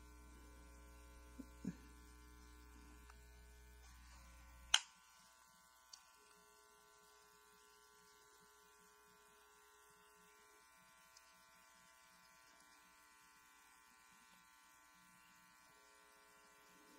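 Near silence: a faint, steady electrical hum with a sharp click a little under five seconds in, after which the deepest part of the hum drops away, plus a few faint ticks.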